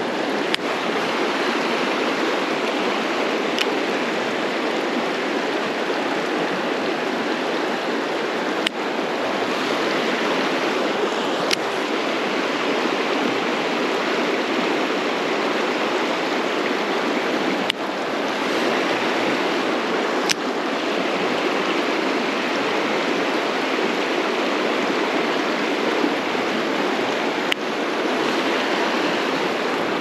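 Mountain stream water rushing steadily. A few short, sharp clicks come every few seconds.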